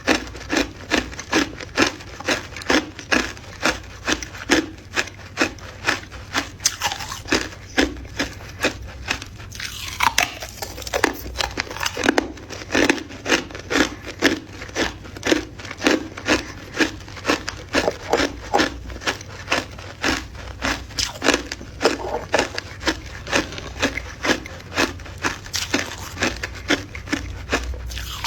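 A person chewing ice close to the microphone: steady crunching bites, about two a second.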